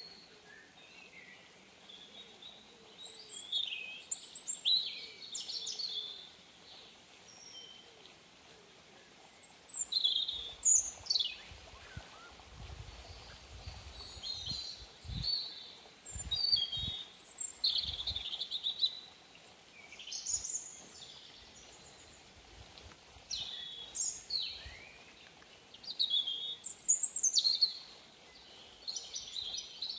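Forest birds calling: many short, high chirps and quick falling whistles, one after another. A few low thuds come in around the middle.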